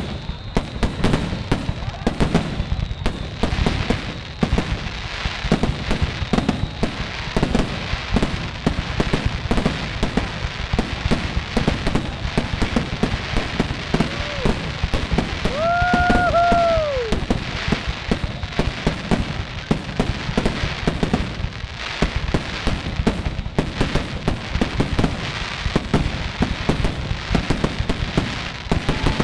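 Fireworks finale: a dense, continuous barrage of aerial shell bursts and crackle. A brief whistle rises and falls about halfway through.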